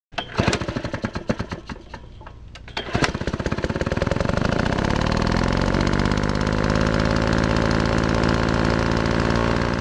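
An engine sputtering with sharp irregular pops for about three seconds, then catching and running with a fast even pulse, its pitch rising and levelling off, before cutting off abruptly at the end.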